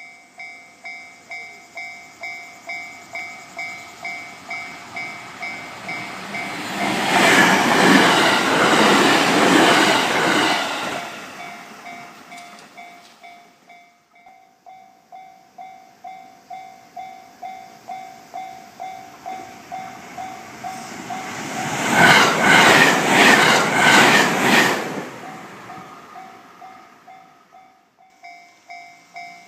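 Japanese level-crossing alarm ringing, a repeating electronic ding about one and a half times a second, while two 521-series electric trains pass in turn, about seven and twenty-two seconds in. The second train's wheels click rhythmically as it goes by, and the alarm pauses briefly between the trains.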